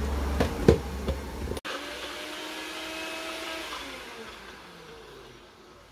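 Personal bullet-style blender grinding raw mango: first a couple of sharp plastic clicks as the cup is set on the motor base, then the motor runs steadily and, in the last couple of seconds, its pitch falls and it fades as it winds down.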